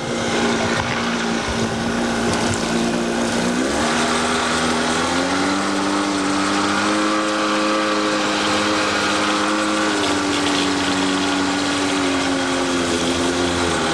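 Small boat's outboard motor running steadily. Its pitch rises as it is throttled up about four seconds in, holds, then eases off slightly.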